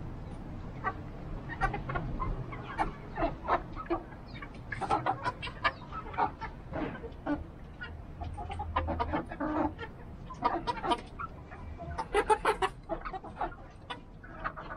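A mixed flock of chickens clucking in short, irregular calls as they feed, with the busiest burst of clucks late on.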